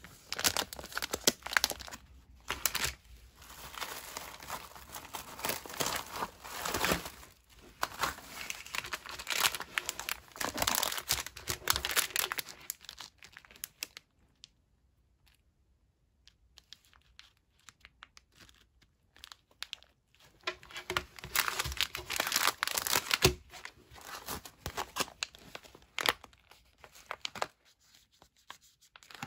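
Plastic snack packaging, a fruit-snack pouch and a tortilla pack, crinkling as it is handled. It comes in two long stretches with a near-quiet gap of several seconds in the middle.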